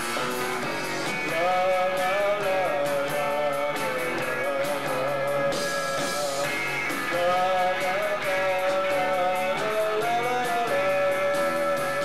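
Live rock band playing: electric guitars over drums with a steady cymbal beat and a held melody line. It sounds thin, with almost no deep bass.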